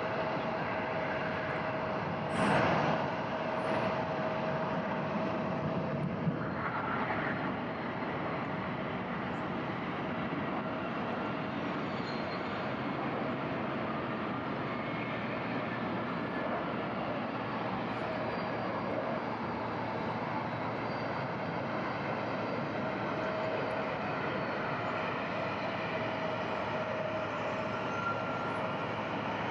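Jet airliner engines: a steady noisy rush with a faint steady whine, and a brief louder rush about two and a half seconds in.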